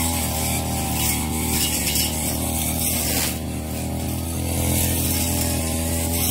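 Ogawa 33 cc two-stroke brush cutter with a cutting blade, its engine running at high revs with a steady buzz; the engine note dips briefly about three seconds in.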